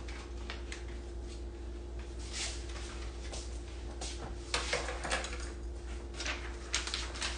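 Short clicks and scrapes of plastic parts and packaging being handled, coming thicker about four seconds in, over a steady hum.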